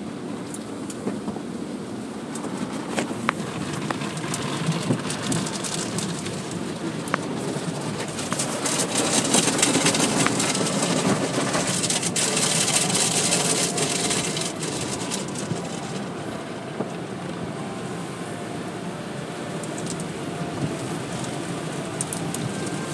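Automatic tunnel car wash heard from inside the car: a steady hiss of water spray and cloth brushes washing over the body, with scattered small taps. It grows louder for several seconds halfway through, as the hanging cloth strips sweep over the car.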